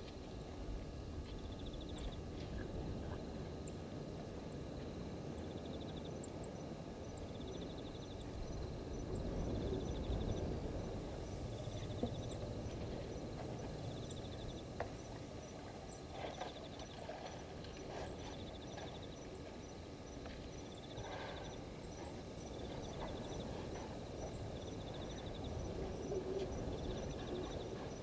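Night ambience at a bush waterhole: insects calling, with short pulsed trills repeating every second or two and an evenly spaced high ticking that starts about six seconds in, over a low steady background noise.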